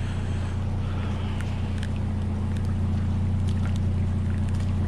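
Steady low drone of a vehicle's engine and drivetrain heard from inside the cab, with a few faint scattered ticks.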